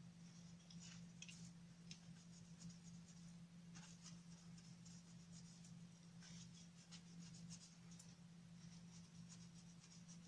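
Faint rubbing and scratching strokes, short and irregular, as a small smart bracelet's screen is wiped clean by hand, over a steady low hum.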